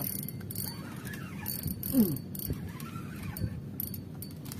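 Spinning reel cranked in spells as a hooked fish pulls on the bent rod, over a steady low hum, with a short falling squeal about two seconds in.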